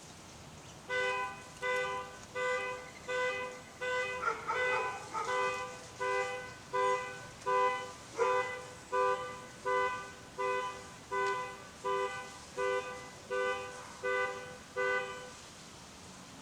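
Car alarm sounding the car's two-note horn in a steady string of short honks, about one and a half a second and some twenty in all. It starts about a second in and stops shortly before the end.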